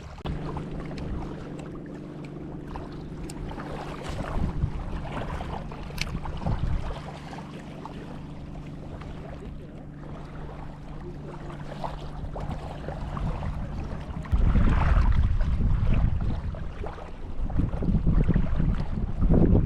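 A small boat motor running with a steady low hum. About 14 seconds in, gusts of wind buffet the microphone with a loud low rumble that covers it.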